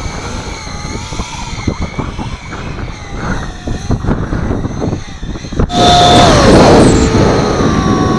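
Radio-controlled model airplane's motor whining with a wavering pitch under heavy wind buffeting on the microphone. About two-thirds of the way in, a sudden much louder rush of noise starts, with the motor tone dropping in pitch.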